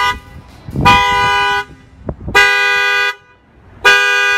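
Honda Accord's car alarm sounding through the horn in repeated blasts, about three in a row, each under a second and spaced about a second and a half apart. The alarm was set off by a kick to the tire through its added shock sensor.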